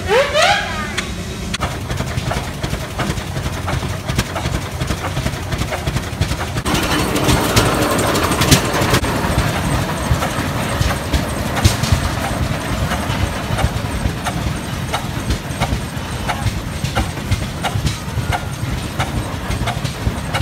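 Large antique steel-wheeled tractor's engine running with a low, rapid exhaust beat as it drives off, louder from about seven seconds in. A few short rising squeals at the very start.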